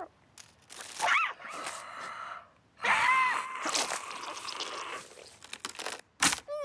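Cartoon character's wordless vocal sounds with comic sound effects: a short rising-and-falling squeak about a second in, a longer pitched 'ah'-like call about three seconds in, and a sharp, loud, noisy burst near the end.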